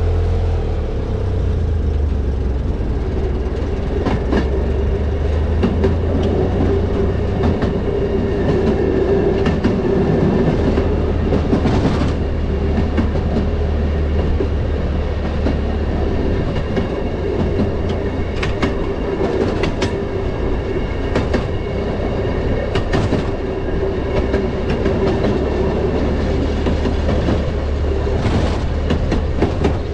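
Rail motorcar rolling along the track: a steady low engine drone with a held tone. Now and then the wheels click sharply over rail joints, every few seconds and unevenly spaced.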